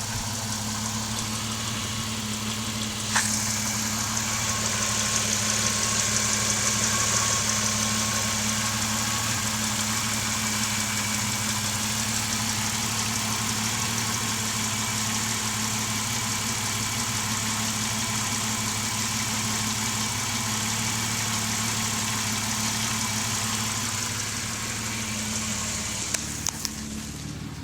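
Mitsubishi 3000GT's SOHC V6 engine running at idle. About three seconds in there is a sharp click, after which a high hiss comes in over the engine and runs on until near the end. The owner hears a weird sound from the car once it is put in drive and does not know its cause.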